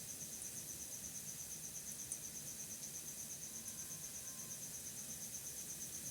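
A cricket chirping in a fast, even pulse of high notes, several a second, over a faint steady hiss.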